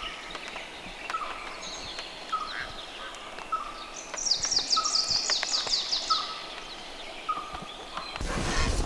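Birds singing: a short rising note repeated about once a second, with a fast descending trill for about two seconds in the middle. Near the end a sudden rush of noise takes over.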